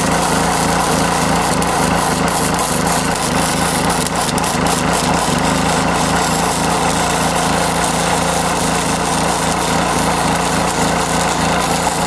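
Electric arc welding on steel brackets and tubing, a continuous crackle and sizzle, over the steady hum of a small engine running.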